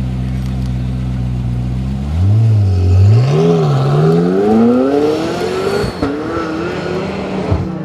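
A supercar engine idling, then blipped up and down about two seconds in before it accelerates hard, its pitch climbing steeply. The note drops briefly at a gear change near six seconds and keeps rising.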